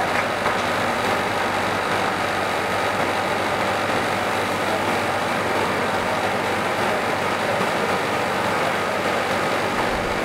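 Steady hum and rush of a large floor-standing air-conditioning unit running.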